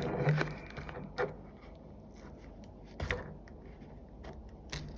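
Scattered light clicks and scrapes of small tools working on a phone's casing as its screen is pried up.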